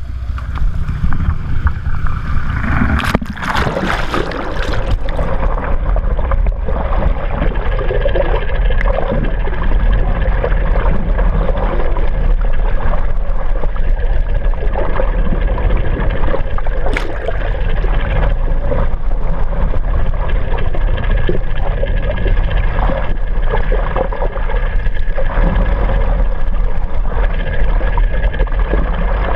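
Water sloshing and splashing around a camera held just below the sea surface beside a fishing boat, muffled, with a steady low rumble underneath. A burst of loud splashing comes about three seconds in.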